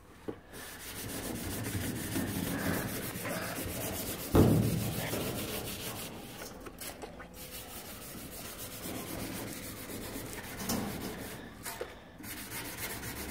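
A scouring sponge scrubbing the vinegar-wet galvanised steel side of a trailer: steady back-and-forth rubbing, with a single thump about four seconds in.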